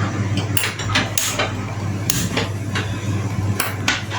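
Kitchen clatter: a string of irregular sharp knocks and clicks of pots and utensils being handled at the stove.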